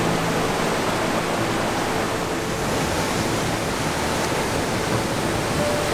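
Mountain creek water rushing over a rocky cascade, a steady rush of whitewater.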